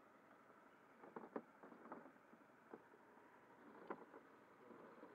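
Faint, scattered clicks and knocks of hands handling fittings and gear in a kayak's cockpit, a small cluster between one and two seconds in and a sharper single knock near four seconds, over a near-silent background.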